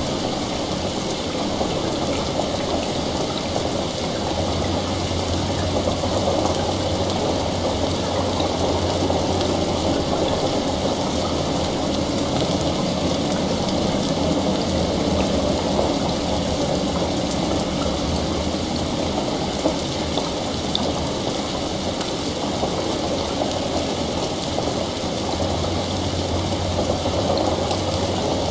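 Steady heavy rain, as heard from inside a room, layered with a low rumble of distant rolling thunder that swells a few seconds in and again near the end.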